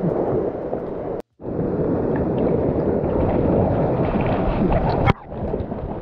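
Rushing water of a waterfall, a steady low rush with small splashes, broken by a brief dead silence a little over a second in and an abrupt drop in level about five seconds in.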